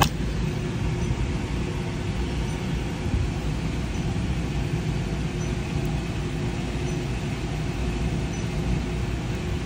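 HVAC air handler's blower running: a steady rushing noise with a deep rumble and a faint steady hum.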